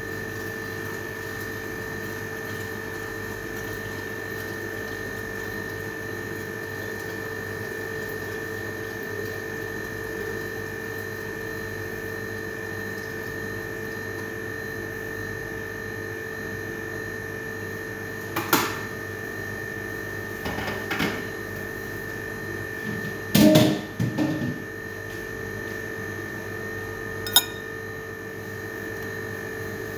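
A steady hum with a high whine in it, from a running kitchen appliance, lasts throughout. In the second half come a few knocks and clatters of dishes and utensils being handled, the loudest a quick cluster about three quarters through, then a single sharp tap near the end.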